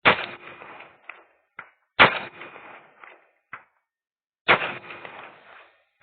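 Three rifle shots from an AR-15 with a 20-inch Bushmaster heavy barrel, firing .223 handloads with 50-grain Nosler Ballistic Tip bullets, spaced about two seconds apart, each with a short echo trailing off. Faint sharp ticks come about a second and a half after the first two shots.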